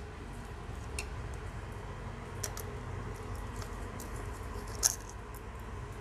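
A few small clicks and taps of a precision screwdriver and tiny screws being taken out of a laptop's metal motherboard cover, the loudest click near the end.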